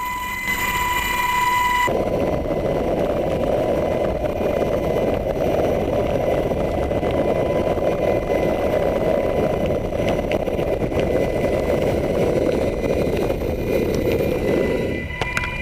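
HH-60 Pave Hawk helicopter cabin noise: a steady high turbine and gearbox whine, joined about two seconds in by a loud rushing noise that cuts off near the end.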